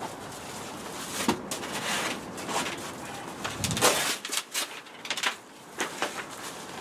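Rustling, knocks and clatter of materials being handled in the bare cargo area of a van: a spray-glue can and foil insulation being picked up and moved, loudest about four seconds in.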